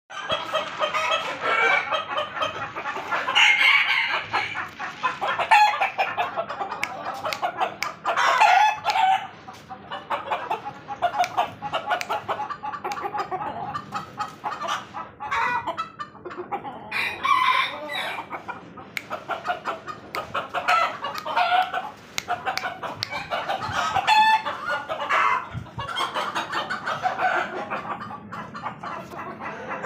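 Many chickens clucking and calling without a break, with louder calls here and there that include roosters crowing.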